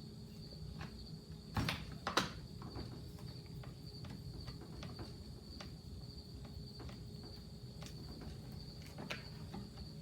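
A steady high insect trill goes on throughout, with scattered light clicks and taps. Two louder sharp knocks come about a second and a half and two seconds in.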